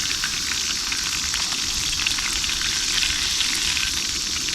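Catfish fillets frying in hot oil in a pan: a steady sizzle with many small crackles and pops.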